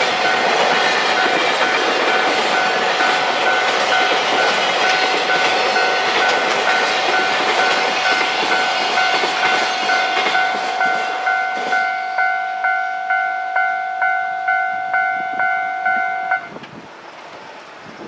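Freight container wagons rumbling and clacking past on the rails, thinning out about two-thirds of the way through. Over this, a Japanese level-crossing warning bell rings steadily at about two strikes a second, then stops abruptly near the end.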